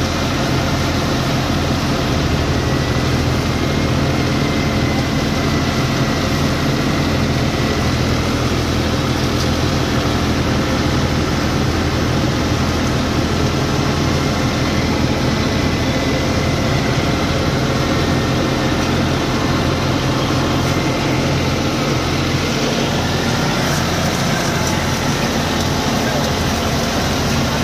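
John Deere tractor's diesel engine running steadily, heard close from the driver's seat, together with the drone of the Punni multi-crop thresher it is pulling and driving.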